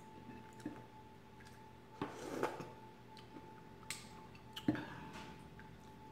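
Metal spoon scraping and clicking against a ceramic soup mug while chowder is scooped, a few separate clinks and a short scrape about two seconds in. A steady hum runs underneath: an oven still running as it cools down.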